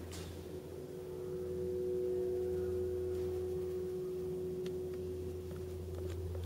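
A steady, pure ringing tone at two pitches, swelling about a second in and fading near the end, over a constant low hum, with two faint clicks late on.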